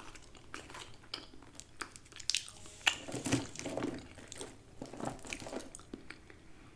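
Close-miked eating sounds: chewing and crunching with wet mouth clicks, mixed with crinkling of paper wrapping, busiest in the middle.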